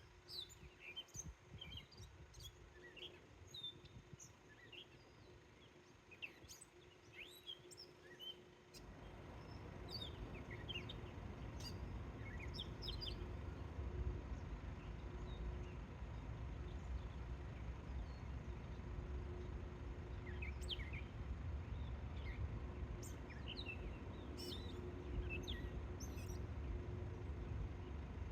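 Birds chirping outdoors, with many short calls scattered throughout. About a third of the way in, a steady low rumble comes in underneath and holds.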